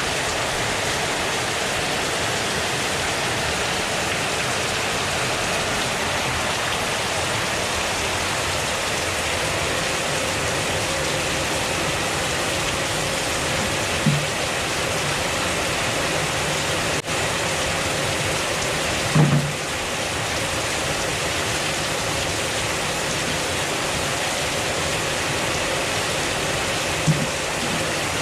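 Heavy rain falling steadily, a constant even hiss of a downpour. Three brief low thumps come a third, two thirds and near the end of the way through, with a sharp click in between.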